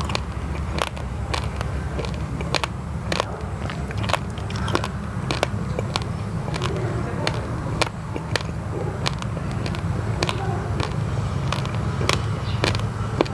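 Uncooked basmati and glutinous rice being chewed, with crisp crunches about twice a second. A steady low rumble runs underneath.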